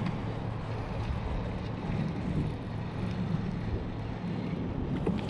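A steady low engine hum under a wash of wind and water noise.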